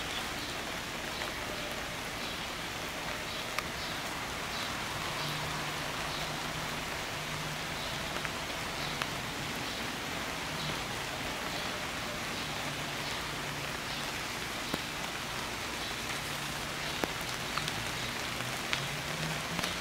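Steady rain falling on leaves and grass, with a few sharper drips.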